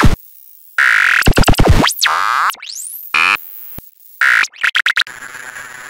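Synthesized glitch sound effects for a logo intro: rapid stuttering bits, pitch sweeps gliding up and down, and hissy static, cutting off suddenly at the end.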